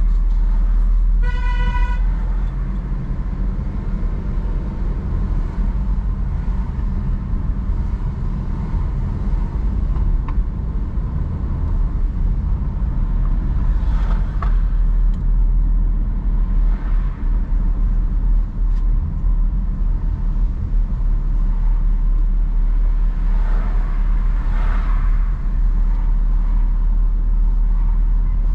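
Steady low rumble of a car driving slowly along a town street, road and engine noise, with a short horn toot from a vehicle about a second in.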